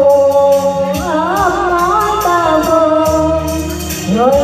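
A woman singing through a microphone over amplified backing music with a steady beat; she holds long notes that waver with vibrato.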